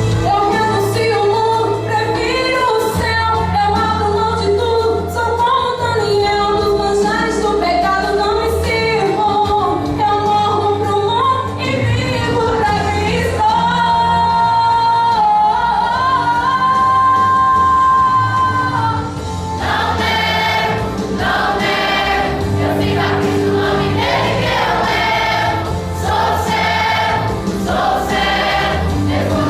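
Choir singing gospel music over an instrumental accompaniment with a steady bass. A long held note comes around the middle, and about two-thirds through the music turns more rhythmic.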